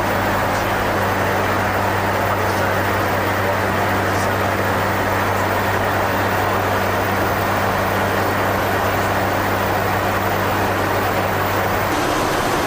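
Airbus A400M's turboprop engines running steadily: a constant drone with a low propeller hum under it, which changes near the end.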